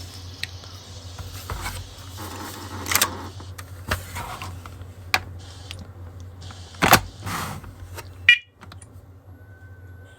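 Plastic clicks, taps and clattering as a Onelink smoke and carbon monoxide alarm is handled and its buttons pressed to unlink it, over a steady low hum. A short high chirp comes about eight seconds in.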